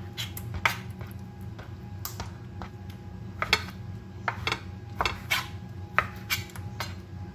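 Knife cutting raw chicken breast on a plastic cutting board: irregular knocks and clicks as the blade strikes the board, over a steady low hum.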